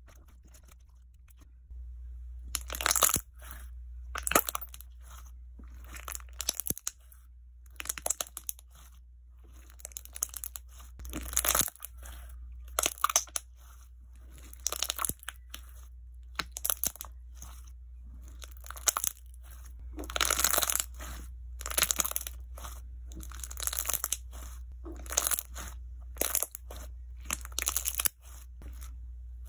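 Hands squeezing and pressing a clear jiggly slime, giving bursts of fine crackling clicks and pops about once a second from about two seconds in.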